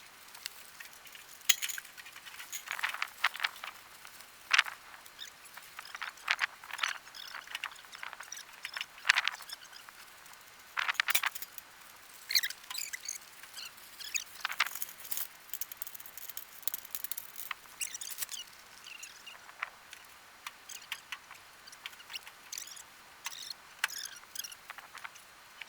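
Irregular rustling, crackling clicks and light clinks of camping gear being handled during bed setup, with no steady rhythm.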